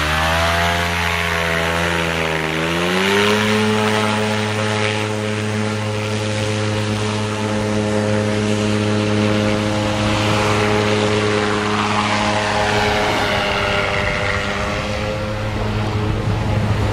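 Engine and propeller of a flying inflatable boat (an inflatable boat slung under a hang-glider wing) revving up and down briefly, then held at a steady pitch from about three seconds in as it runs across the water and takes off. The sound turns rougher near the end as the craft climbs away.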